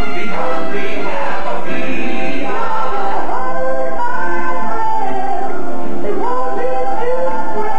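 Animatronic stage show soundtrack: several voices singing together over band accompaniment, played through the theatre's speakers.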